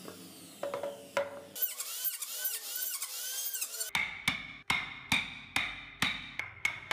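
A steel wood chisel driven by hammer blows into a wooden block. It gives about eight sharp knocks with a short ring, roughly two a second, starting about four seconds in.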